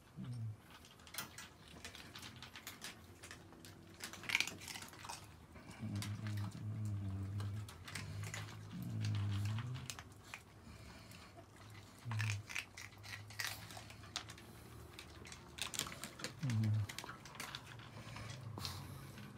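Small dogs eating dry kibble from bowls: scattered sharp crunches and clicks of kibble against the bowls. A few low, drawn-out sounds come in between, about halfway through and again near the end.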